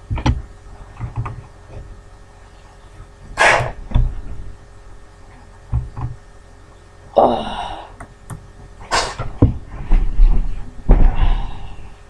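A scuffle: several sharp cries and breathy gasps, one falling yelp about seven seconds in, then heavy thumps near the end as someone is dragged down.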